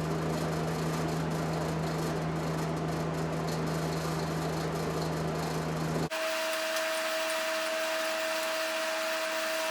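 Steady machine hum with a low drone. About six seconds in it cuts abruptly to a different steady hum with a higher whine.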